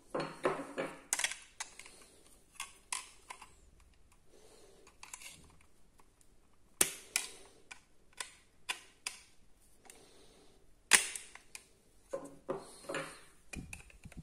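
A series of irregular sharp clicks and light knocks, a dozen or more, spaced unevenly. The loudest come about halfway through and about three-quarters of the way through.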